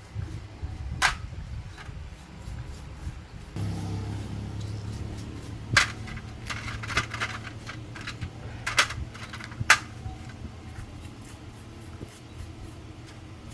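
Several sharp clicks and clinks, as of metal hand tools on parts, over a low steady engine hum that comes in a few seconds in.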